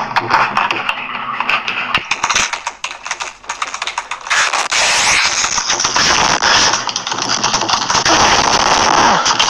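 Computer keyboard typed on frantically fast: a dense, continuous clatter of keystrokes.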